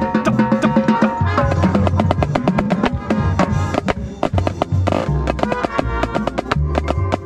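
Marching drumline playing: rapid, crisp snare drum strokes close to the drum, over pitched bass drums and tenor drums.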